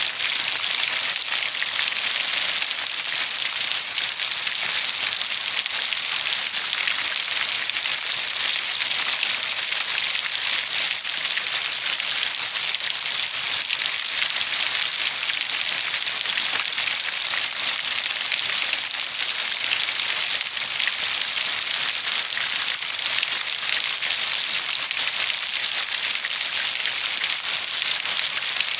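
Steady rain falling, the many drops landing as a continuous hiss with fine pattering.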